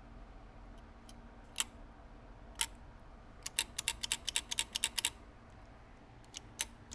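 Sharp, light clicks: two single clicks, then a quick run of about a dozen in under two seconds, then a few more near the end.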